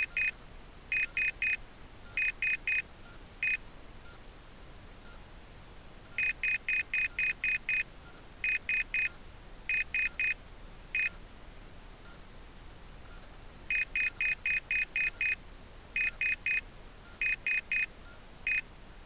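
A rocket's onboard altimeter, after landing, beeping out the flight's peak altitude in short high-pitched beeps: seven, then three, three and one, for 7,331 feet. The readout repeats about every seven and a half seconds.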